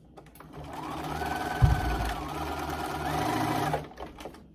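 Bernina sewing machine running to stitch down a fabric flap: it starts about half a second in, runs with a steady whine that dips briefly in pitch midway, and stops near the end. A single low thump about one and a half seconds in.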